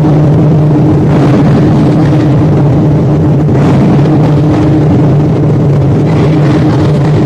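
A large ensemble of Chinese barrel drums played together in a loud, dense drum roll, so continuous that no separate beats stand out.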